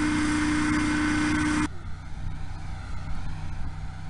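Recorded noise of a classic cruising hovercraft running, a loud steady fan-blade tone over a hiss. Under two seconds in it cuts abruptly to the quieter Q1 hovercraft, a softer, lower hum with much less hiss.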